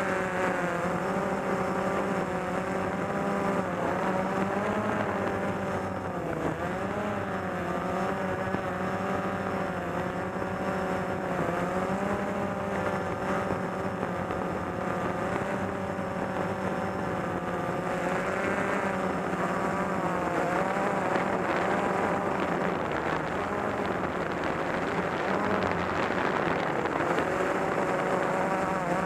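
Small multirotor drone's electric motors and propellers humming steadily, heard from on board the aircraft. The pitch wavers as it manoeuvres, with a brief dip about six seconds in.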